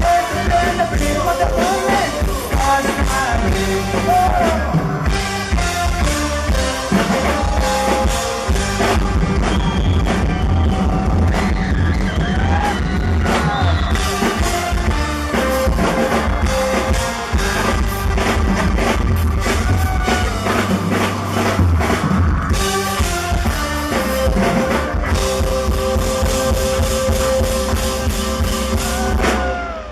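Live band performing a rock song with drum kit, with a voice singing at times over the instruments.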